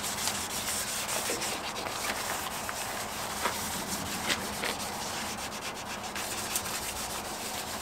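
Wet-and-dry sandpaper, 1000 grit and wet, rubbed by hand over a Model T Ford's rusty steel fenders, making a steady scratchy rubbing. The paper is only scuffing the roughness off the surface rust, not cutting down to bare metal.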